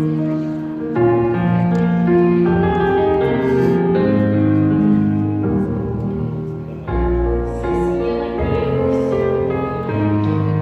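Slow instrumental music led by piano or keyboard, sustained notes changing in steady steps.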